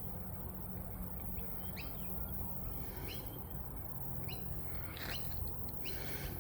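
Wild birds calling: short, sharp rising chirps about once a second, over a steady low rumble.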